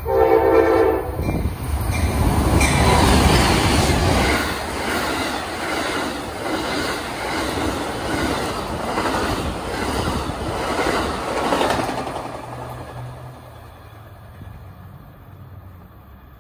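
Amtrak passenger train sounds a short horn blast as it approaches, then passes at about 65 mph. There is a loud rush of wheels on rail with rhythmic clicking as the cars go by, fading after the last car passes about twelve seconds in.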